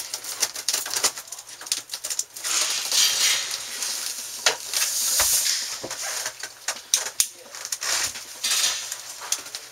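Hands at work on a camper air conditioner: irregular small clinks and knocks of tools and metal parts, with several stretches of scraping or rustling.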